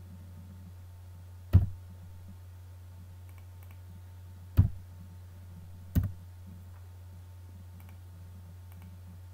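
Three separate computer mouse clicks, about a second and a half, four and a half and six seconds in, over a steady low hum.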